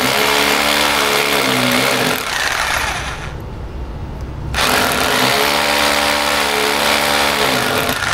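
Electric drill boring into a plastered wall in two bursts, with a break of about a second between them. The motor whine sags as the first burst winds down and climbs again as the second starts.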